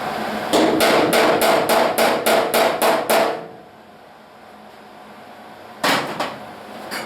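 A hammer striking steel sheet metal: a quick run of about a dozen blows, roughly four a second, with the panel ringing. After a pause, one or two more blows land about six seconds in and one near the end.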